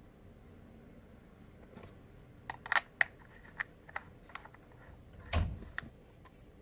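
About ten small, sharp, irregular clicks over roughly three seconds from handling an Eleaf iStick 100W vape mod and pressing its buttons, with a duller knock about five seconds in. The mod is not firing the Lemo 3 atomizer and reports "No atomizer".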